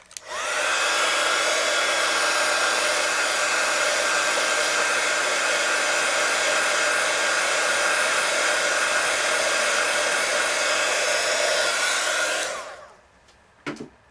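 Handheld hot-air dryer switched on to dry fresh paint-pen ink. Its motor whine rises as it spins up, then it blows steadily with a loud rushing hiss for about twelve seconds, and the whine falls away when it is switched off. A short knock comes near the end.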